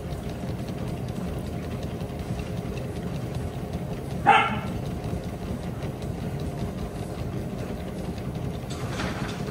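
A dog treadmill's motor and belt running with a steady low hum. About four seconds in, a dog gives one short, loud bark.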